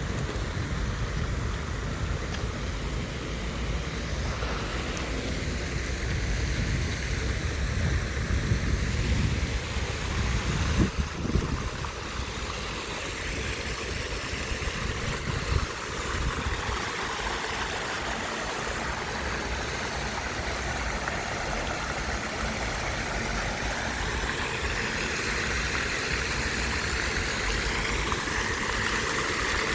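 Wind buffeting the microphone over a steady outdoor background hiss, with the low gusting strongest in the first half and easing off after about twelve seconds.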